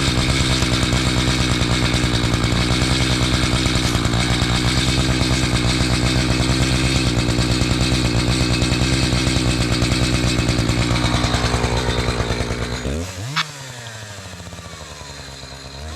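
Gas chainsaw running steadily at high speed with a fast pulsing beat, cutting through a log with a newly sharpened chain. About twelve to thirteen seconds in it eases off and drops abruptly to a much quieter sound.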